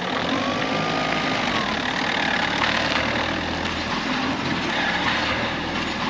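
Combo van running as it drives off towing a mobile sheep race trailer: steady engine and road noise.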